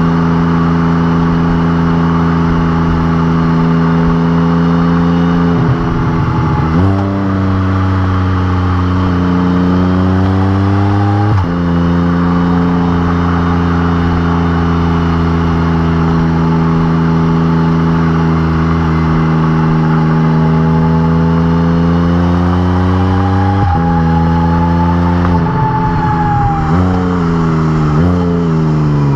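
Can-Am Spyder RT Limited's three-cylinder engine, breathing through an RLS Exhaust Crusher muffler, on the road. It shifts about six seconds in, revs climb to an upshift about eleven seconds in, then it cruises steadily. Near the end come two pitch jumps and then falling revs as it slows.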